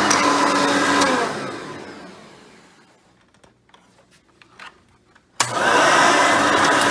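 Hoover Elite 350 upright vacuum running, then switched off about a second in, its motor winding down with a falling whine. After a near-quiet pause with a few small knocks, it is switched back on near the end and spins straight up to full speed.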